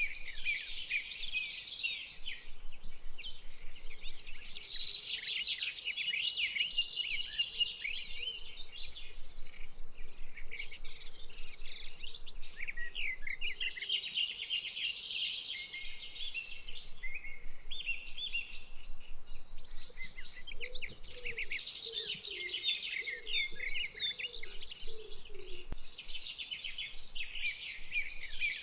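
A chorus of many small birds chirping and singing, with high, quick calls overlapping continuously. A few lower-pitched calls join in about three quarters of the way through.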